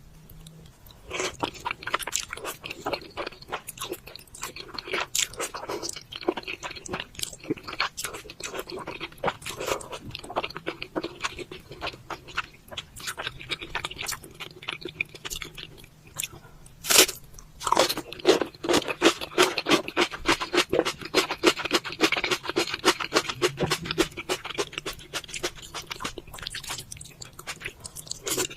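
Close-miked eating: crunchy food being bitten and chewed, a dense run of wet crunches and crackles, with one loud sharp bite about seventeen seconds in.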